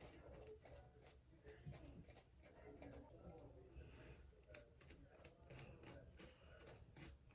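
Faint, quick, irregular clicks of a small handheld tool working on a wig, several a second.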